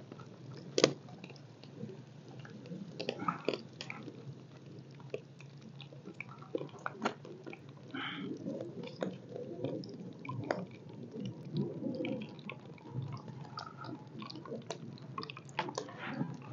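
Pakoras frying in hot oil in a wok over a wood fire: a faint, even sizzle and bubbling, with scattered light clicks and taps as a mesh skimmer works in the pan.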